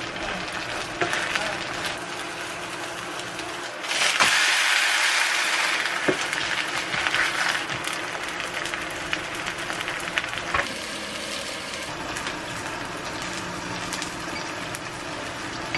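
Chive pancake frying in oil in a pan: a steady sizzle with a few sharp taps of a wooden spatula. The sizzle grows louder for about two seconds, about four seconds in, as the pancake is turned over.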